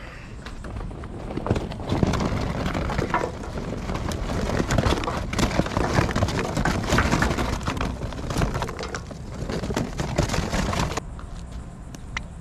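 Kingsford charcoal briquettes poured from a paper bag into a steel grill, rattling and clattering as they tumble onto each other and the metal. The clatter stops suddenly near the end.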